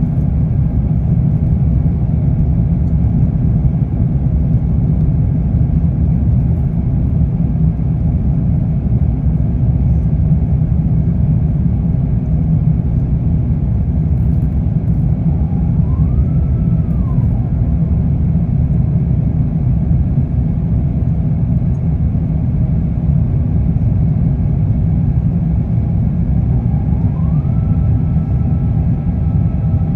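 Steady cabin roar of an Airbus A350-900 climbing after takeoff, the engine and airflow noise heavy and low. A fainter whine rises briefly and falls back about halfway through, then rises again near the end and holds.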